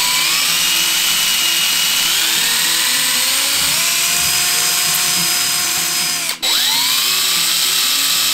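Cordless drill running, its bit boring a small hole through the bone of a deer's skull plate. The motor's whine climbs in pitch in steps, cuts out for a moment about six seconds in, then spins up again.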